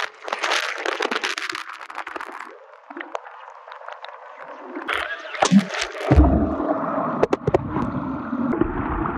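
Muffled underwater sound picked up by a phone that has fallen into a pool: crackling, gurgling water for the first couple of seconds, then a quieter stretch, a few sharp knocks, and a steady low underwater rumble from about six seconds in.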